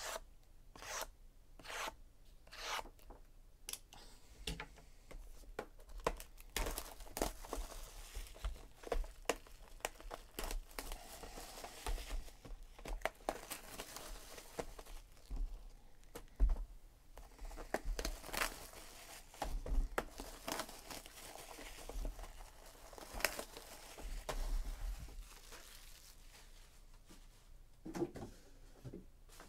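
Hands tearing the wrapping off trading-card boxes, with irregular ripping and crinkling and sharp knocks and taps as the cardboard boxes are handled and restacked.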